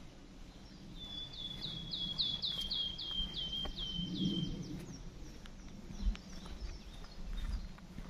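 A songbird sings a phrase of about ten quick repeated notes, each sliding down in pitch, with fainter calls after it. Under it come the soft thuds of footsteps on a dirt forest path.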